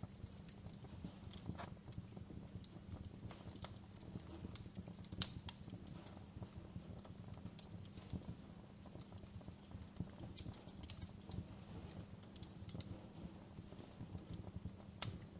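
Fire crackling: irregular sharp pops and snaps, one louder pop about five seconds in, over a low steady rumble.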